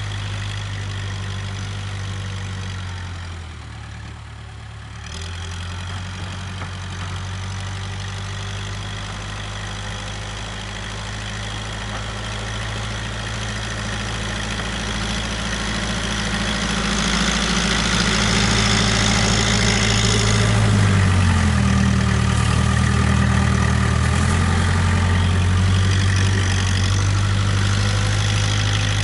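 Case 580K backhoe's four-cylinder diesel engine running steadily as it works snow. It dips quieter for a moment about four seconds in, then grows louder through the second half, its pitch shifting up and back down a few seconds later.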